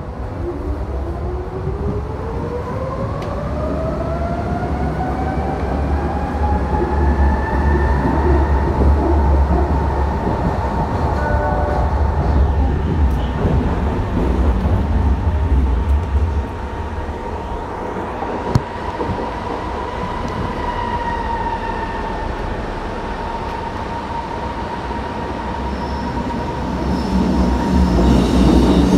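Berlin U-Bahn G1/1E subway train accelerating from a station. Its drive whine rises in pitch over the first several seconds, then holds steady as the train runs at speed, over a constant rumble of wheels on track. Near the end the rumble grows louder and a faint high squeal joins it.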